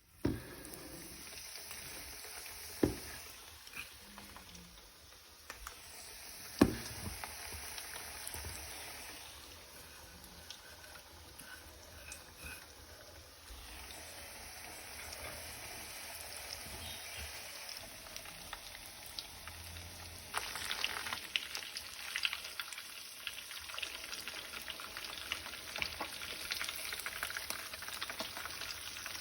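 Close-up eating and food-handling sounds of mixed noodles with crispy fried chicken: a crisp, crackly rustle with a few sharp knocks in the first seven seconds, becoming denser and louder about twenty seconds in.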